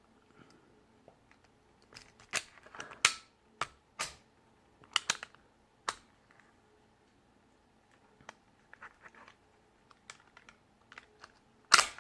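Swingline Optima 40 compact stapler being handled, with scattered sharp plastic-and-metal clicks and snaps. Near the end comes a quick run of loud clicks as the stapler is pressed again and again.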